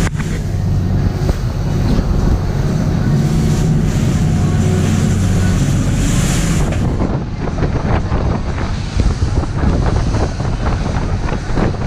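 Lobster boat's inboard engine running steadily under way, with waves and spray rushing along the hull. Wind buffets the microphone, and after about halfway it grows gustier while the engine hum fades back.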